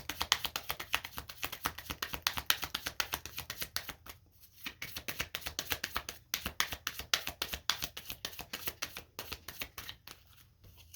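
A deck of Kipper fortune-telling cards being shuffled by hand: rapid rattling card clicks, about ten a second, with brief pauses about four and six seconds in, thinning out near the end.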